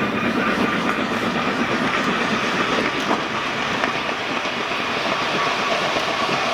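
Red-hot forged steel hammer head being quenched in water, the water boiling and crackling steadily against the hot steel.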